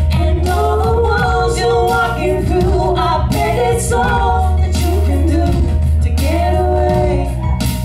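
Two women singing a slow song live in harmony, over a steady low bass note.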